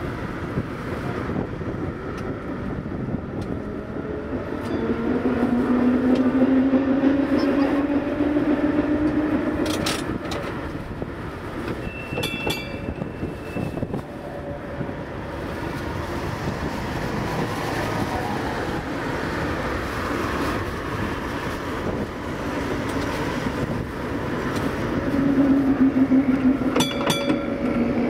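A 1904 electric tram runs along street track, heard from its open front platform: wheels rumbling on the rails under a steady wind noise. The traction motor whine rises in pitch about five seconds in and again near the end as the tram picks up speed, with a few sharp clicks from the running gear.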